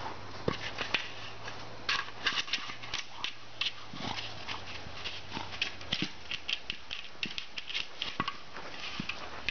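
Snow crunching under a dog's paws as it runs about and noses a hard plastic egg toy through the snow: quick, irregular crunches.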